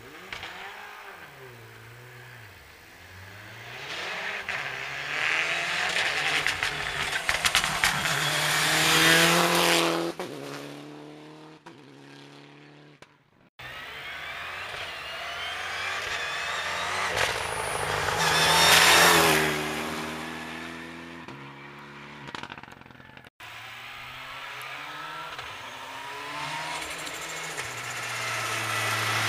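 Rally cars at full speed, three passes in turn: each engine is heard approaching, revving hard and stepping up through gear changes, getting loud as it passes close, then falling away.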